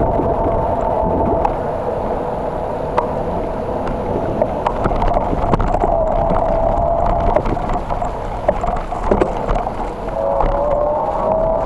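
Bicycle rolling along a paved path, heard from a camera on the bike: a steady rush of wind and road noise with small rattles and clicks over bumps, and a wavering whine that shifts in pitch near the end.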